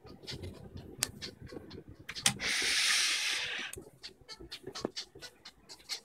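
Scattered light clicks and rattles from a Princess 300 manual typewriter's mechanism being worked. There is a sharp click about two seconds in, followed right away by a breathy hiss lasting just over a second, the loudest sound here.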